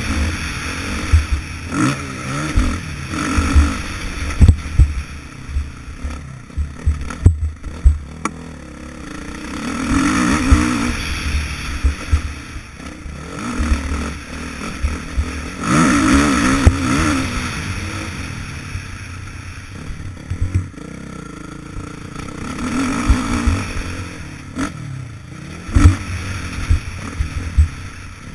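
Dirt bike engine revving up and easing off in repeated surges as it rides a rough motocross track, heard from a helmet-mounted camera. Frequent sharp thuds and clatter from the bike hitting bumps and ruts.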